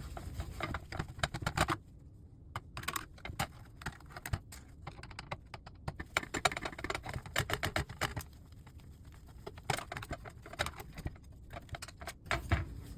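Irregular small clicks, taps and light rattles of a screwdriver and loose metal parts as screws are taken out of an LCD monitor's power board.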